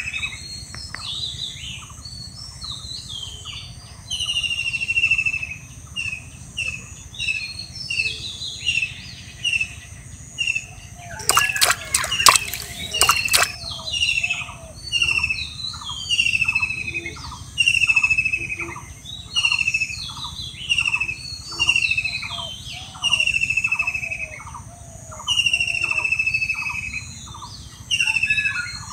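Several birds calling, with one repeating a short falling whistle about once a second through much of it, among other chirps. About eleven seconds in comes a brief cluster of sharp close clicks and rustles.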